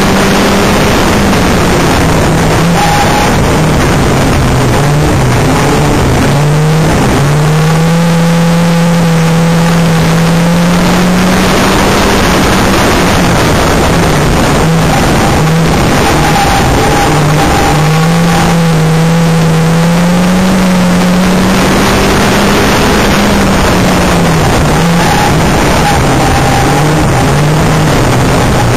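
Banger racing car's engine, loud from inside the car, its pitch climbing as it accelerates and dropping back as it lifts off, over and over through the laps.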